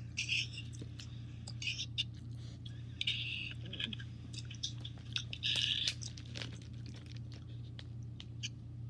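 Close-up chewing and mouth sounds: irregular wet clicks and short smacks, over a steady low hum.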